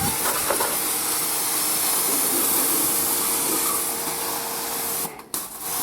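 Pressure washer spraying water onto a motorcycle frame: a loud, steady hiss of the jet with a faint steady motor whine under it. The spray cuts off about five seconds in and starts again half a second later.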